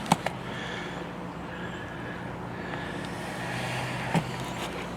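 A steady low motor hum, with a couple of sharp clicks just after the start and a single knock about four seconds in.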